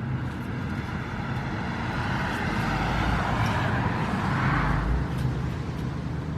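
A passing road vehicle: a broad noise that swells to a peak about four and a half seconds in and then fades, over a steady low hum.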